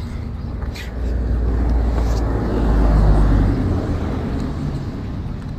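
A motor vehicle passing by, its engine and tyre noise swelling to a peak about three seconds in and then fading away.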